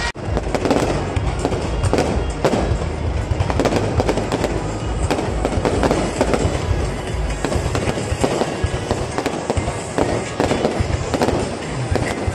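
Fireworks display: aerial shells bursting in a dense, continuous barrage of bangs and crackles.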